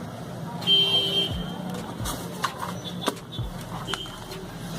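Handling noise from unboxing: a brief scraping rustle about a second in, then several light clicks and knocks, over a steady low hum.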